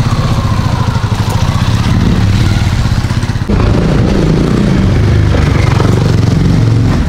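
A small motorcycle engine running close by, getting louder about three and a half seconds in as it draws near.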